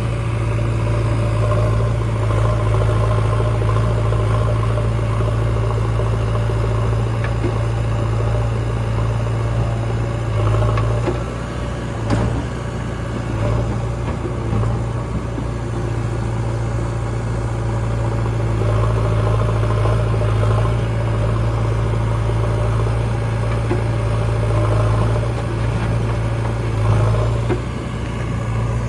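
Diesel engine of a JCB 3DX backhoe loader running steadily as a low, even drone while it loads mud, with one sharp knock about twelve seconds in.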